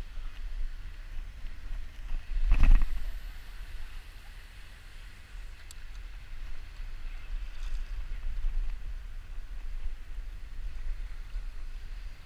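Steady low rumble of wind buffeting the microphone over light surf, with one louder rush about two and a half seconds in.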